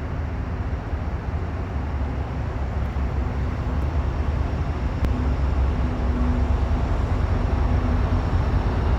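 CSX freight train of tank cars rolling past, a steady rumble that grows slowly louder, with a faint steady hum running through it.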